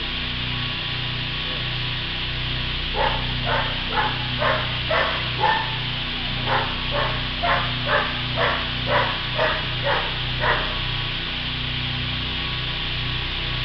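A dog barking repeatedly, about two barks a second, in two runs starting a few seconds in and stopping near the end, over a steady machine hum.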